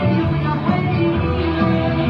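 Music for a group dance playing throughout, with held melody notes over a steady beat.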